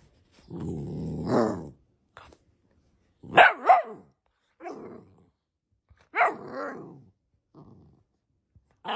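Golden retriever puppy growling, then giving a few sharp, high barks and yips, the loudest two in quick succession about three seconds in. It is play barking, with the puppy in a play bow.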